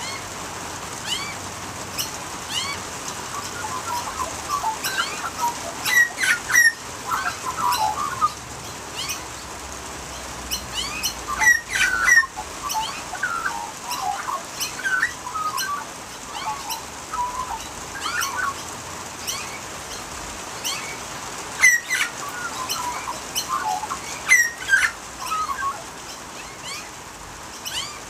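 Australian magpies warbling and carolling, with several louder clusters of sharp calls among the ongoing warble, over a steady hiss of rain.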